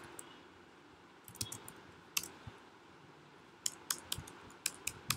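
Computer keyboard keys clicking: a dozen or so faint, irregular keystrokes as a line of code is typed, more of them towards the end.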